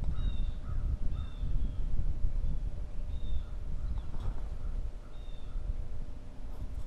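Blue jay calling: four or five short, harsh, slightly falling calls spaced a second or two apart, over a low rumble.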